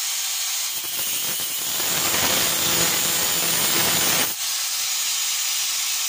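Angle grinder with a thin cut-off disc cutting through an aluminium channel, a steady high hiss of the disc biting the metal. The cut sounds heavier from about a second in, then thins out just after four seconds as the disc breaks through.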